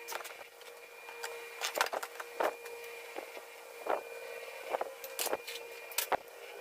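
A PVC plastic sheet handled on a wooden table: scattered light knocks and short scrapes as it is lifted, set down and rubbed, over a steady faint hum.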